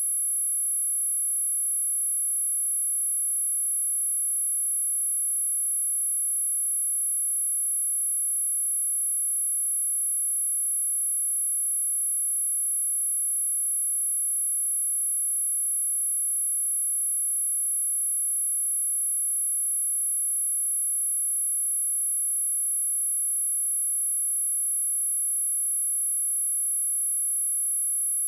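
A steady, very high-pitched pure test tone: a 10837 Hz sine wave held unchanged at one level, as used for speaker testing and speaker cleaning.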